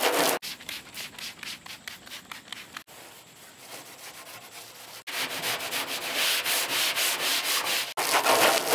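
A Scotch-Brite pad scrubbing a painted steel truck door with Ajax cleanser, in quick rasping strokes several a second. From about five seconds in, a garden hose sprays water onto the door with a steady hiss.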